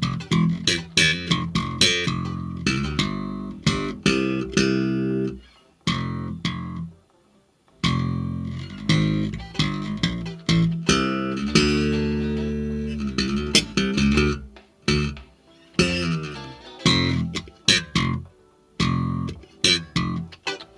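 Instrumental music of plucked guitar over bass, played through a Betavo WRX212N full-range neodymium line array speaker (two 12-inch woofers and a 3-inch high driver) with FIR correction applied, and picked up by a microphone in the room. The notes come in short plucked phrases with a near-pause of about two seconds about six seconds in.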